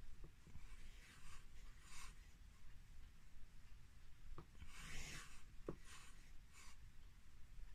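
Soft swishing and rubbing sounds of a person doing push-ups on carpet, a few short swishes with the loudest about five seconds in.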